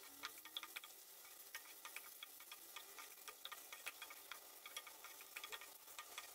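Wooden spatula stirring eggplant slices in a nonstick kadai: faint, irregular small taps and scrapes against the pan over a light sizzle of frying.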